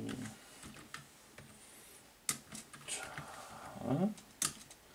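Computer keyboard keys clicking as a few words are typed, separate keystrokes spread unevenly. A man's brief murmur comes about four seconds in.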